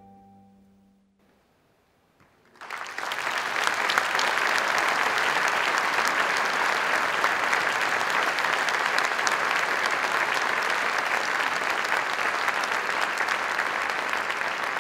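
The orchestra's last held chord dies away within the first second, a short hush follows, then audience applause breaks out about two and a half seconds in and continues steadily.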